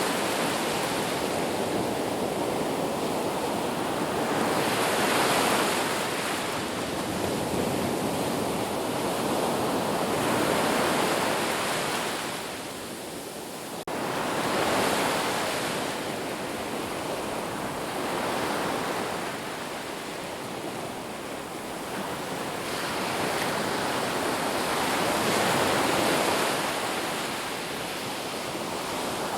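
Sea waves breaking and washing up on a shore, a steady rush of surf that swells and ebbs every few seconds.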